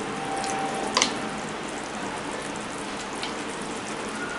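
Gravy simmering in a pan, a steady bubbling hiss, as cornflour slurry is spooned in to thicken it; a single clink about a second in.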